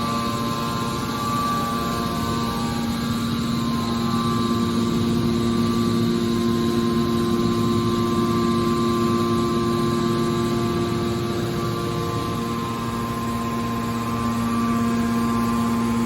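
Hydraulic metal press baler running: a steady machine hum with a constant pitched drone from its motor and hydraulic pump.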